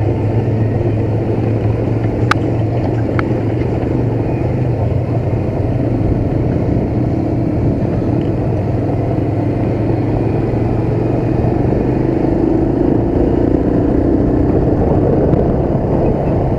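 Motorcycle engine running steadily while riding at low speed, with its note rising a little in the second half. Two brief clicks sound about two and three seconds in.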